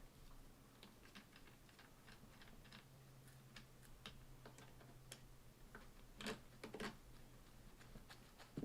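Faint, irregular small clicks and ticks of the kayak seat-line fitting and its screw being handled and fitted back into place, with two slightly louder clicks a little after six seconds, over a faint steady low hum.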